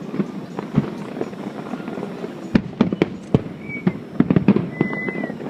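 Fireworks going off: a run of sharp bangs and crackling pops, coming thickest in two quick flurries around the middle.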